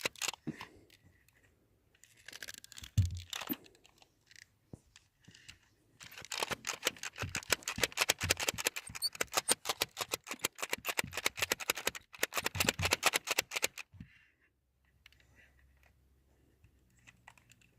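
A plastic grabber tool's jaws being snapped open and shut in a fast, even run of clicks, about six a second, for several seconds. Before it come a few scattered scratchy rustles.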